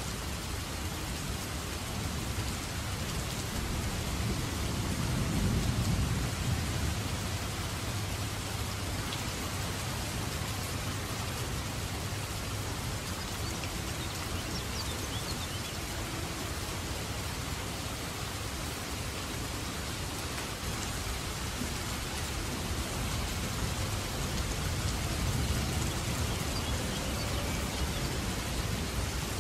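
Heavy downpour with a steady hiss of rain, and low rolling thunder that swells about five seconds in and again near the end.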